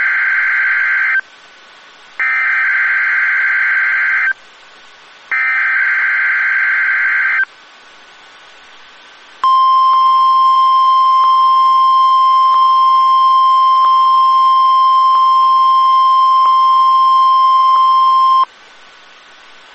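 NOAA Weather Radio Emergency Alert System test signal: three screechy SAME digital header bursts of about two seconds each, a second apart, then the steady 1050 Hz weather radio warning alarm tone held for about nine seconds before it cuts off. Together they make up the weekly test of the warning alarm.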